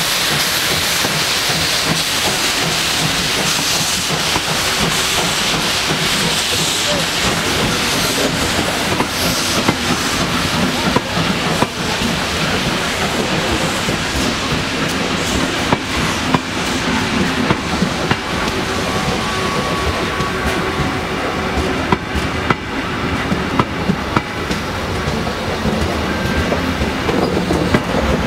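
Steam hissing from an NMBS/SNCB class 29 steam locomotive, loudest at first and easing off after about eight seconds, while a train of passenger coaches rolls slowly past close by. From about ten seconds in, its wheels give irregular clicks and knocks over the rail joints.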